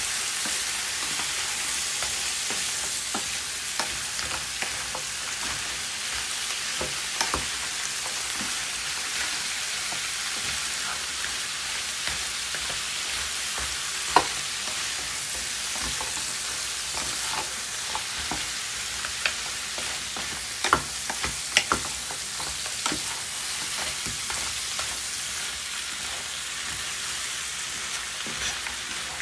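King crab pieces in their shells sizzling in butter in a nonstick frying pan while being stirred with a wooden spatula: a steady frying hiss with scattered clicks and knocks of shell and spatula against the pan.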